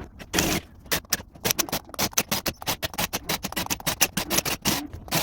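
Rapid, irregular run of sharp metallic clicks and short scrapes, about five or six a second, as hand tools are worked on metal.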